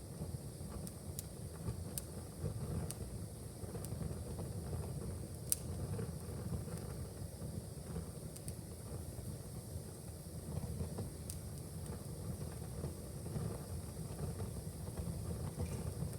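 Fire crackling in a fireplace: scattered sharp pops over a low, steady rumble, the loudest pop about five and a half seconds in.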